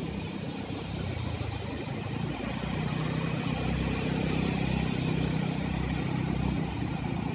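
A motor vehicle's engine running close by, a low steady hum that grows louder through the middle and eases off a little near the end.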